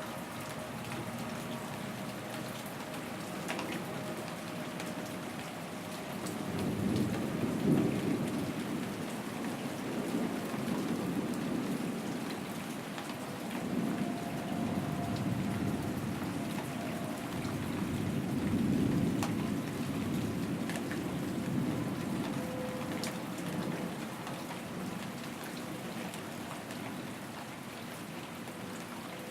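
Steady rain falling with scattered drops, under long, low rolls of thunder that swell and fade several times, the loudest about a quarter of the way in and again past the middle.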